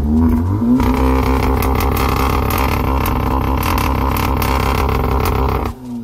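Volkswagen Golf R's 2.0 TSI four-cylinder engine revved while stationary, heard at the tailpipes of its Akrapovic exhaust: the revs climb for about a second, are held high and steady, then cut off abruptly near the end as the throttle is released.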